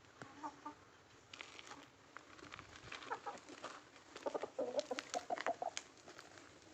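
Aseel hens clucking in short, scattered calls, with a quick run of clucks about four to six seconds in, amid light clicks.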